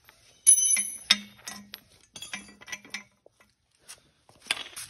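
Steel tubular suspension arm of a snowmobile clinking and ringing as it is handled against the concrete floor: a loud metallic strike about half a second in, then several lighter clinks over the next two seconds, each leaving a brief ring. A couple of soft rustles follow near the end.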